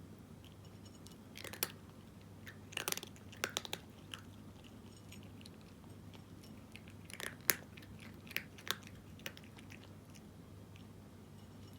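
A cat crunching dry kibble, in irregular bursts of sharp crunches with short pauses between mouthfuls.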